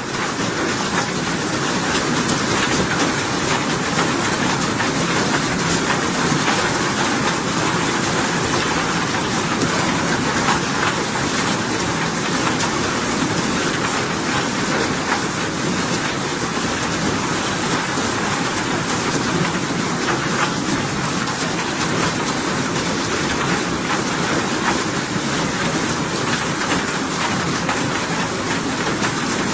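Steady rain falling: a dense, even hiss of drops that swells up in the first second and then holds level.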